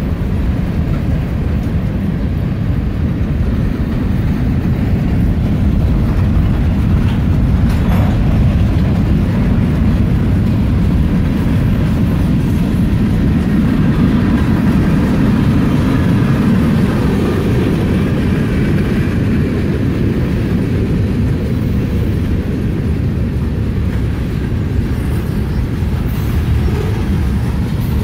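Freight train of boxcars and covered hoppers rolling past close by: a steady loud rumble of steel wheels on rail.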